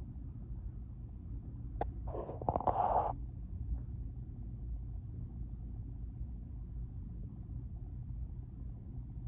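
A steady low rumble, with a sharp click a little under two seconds in followed by a short rustle lasting about a second.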